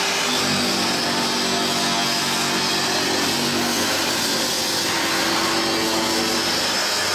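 Grinding head of a crusher-knife sharpening machine grinding the edge of a straight steel crusher blade: a steady, even grinding hiss.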